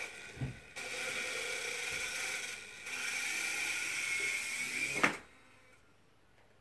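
Small RC helicopter's electric rotor motor whining steadily, dipping briefly partway through, then cutting off about five seconds in with a sharp click.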